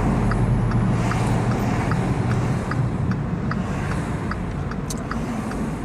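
Car cabin noise, a steady low engine and road rumble, with a turn signal ticking evenly about twice a second.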